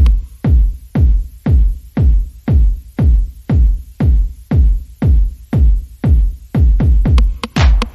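Background electronic music with a steady, deep kick-drum beat, about two beats a second.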